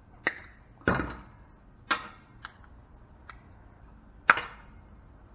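Hammer blows on a scrap transformer, about six irregularly spaced sharp knocks, the loudest near the end.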